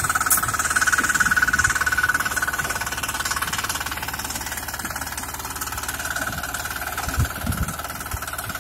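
Engine of a BHEEM walk-behind power weeder running steadily under load as it cuts a furrow through the soil, growing gradually fainter as the machine moves away. A few low thumps come about seven seconds in.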